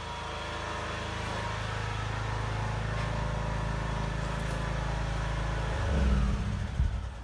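A motor vehicle's engine running, a steady low hum that grows gradually louder. Near the end it turns into an uneven low rumbling.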